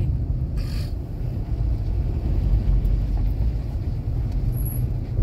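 Cabin noise of a car driving on a paved mountain road: a steady low rumble of engine and tyres, with a brief hiss just under a second in.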